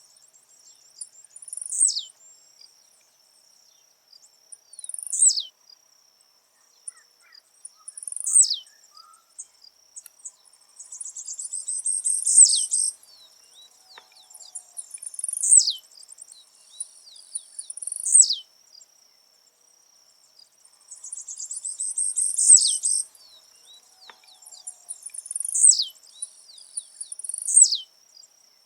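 Blue-black grassquit (tiziu) singing: short high buzzy notes that sweep steeply downward, repeated about every three seconds, with two longer buzzy phrases about 11 and 21 seconds in. A steady high insect trill runs underneath.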